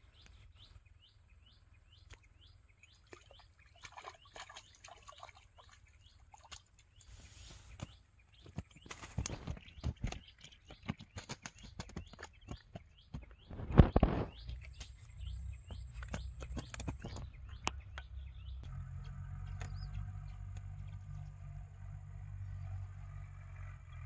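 Small birds chirping in quick repeated calls, then a hooked fish being landed: a run of sharp clicks and slaps as it thrashes in the grass of the bank, with one loud thump about midway. Near the end a low steady hum comes in.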